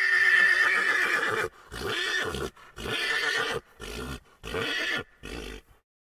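A horse whinnying: one long high note that breaks into a run of shorter pulses, fading away.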